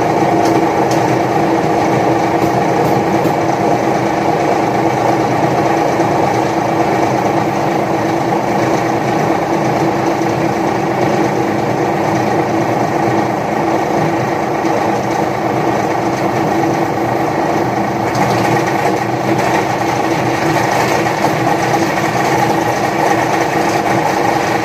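Paper shredder running steadily as it shreds, a loud continuous motor hum over a dense grinding noise.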